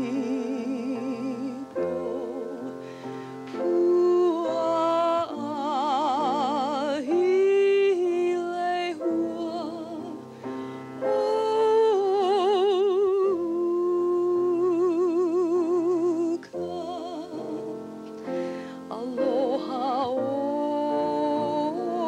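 A slow song sung in a classical style, the voice holding long notes with a wide vibrato, over piano accompaniment.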